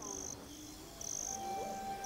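Cricket chirping in a regular rhythm, short high chirps a little under one a second. Soft music with held notes comes in about halfway through.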